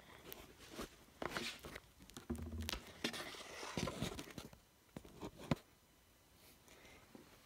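Handling noise at a workbench: rustling with scattered light clicks and knocks, including a short low hum a little after two seconds in and a sharp click about five and a half seconds in.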